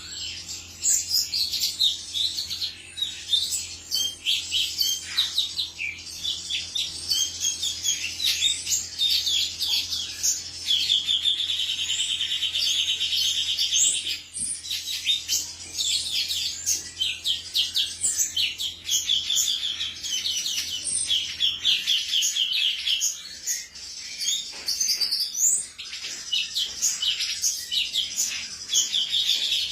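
Male cucak cungkok singing: a fast run of high, sharp chirps broken by several rapid rattling trills of a second or more.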